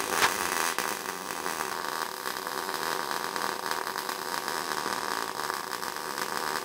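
MIG welding arc running steadily on .035 wire under 75/25 shielding gas, a continuous hiss and crackle. The machine is set low, near 17 volts with the wire feed run down, so the weld is running too cold and risks lack of fusion.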